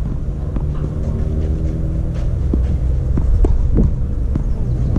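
Scattered sharp knocks of a tennis ball being struck and bouncing on a clay court, over a steady low rumble with a humming tone that fades out about halfway through.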